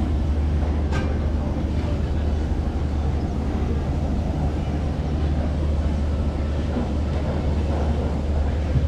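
Gondola lift station machinery running with a steady low hum and rumble, with one sharp click about a second in.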